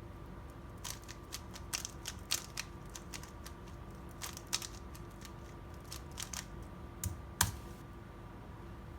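Plastic speedcube clicking as its layers are turned: irregular single clacks, a few close together, with the loudest clack about seven seconds in.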